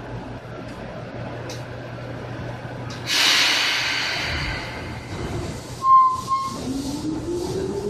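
Seibu 2000-series electric train: a sudden burst of air hiss about three seconds in, a short beep about six seconds in, then the motor whine starting and rising steadily in pitch as the train pulls away.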